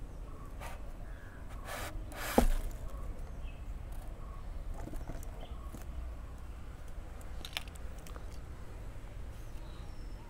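Hand-handling noises on styrofoam: one loud, short scrape with a squeak about two seconds in as the firework tube is set on the thermocol block, then a few light clicks, over a steady low rumble.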